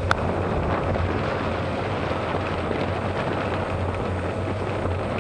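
Wind rumbling heavily on the microphone of a bike-mounted camera on a fast wet descent, over a steady hiss of rain and wet tyres on the road. A single sharp tick sounds just after the start.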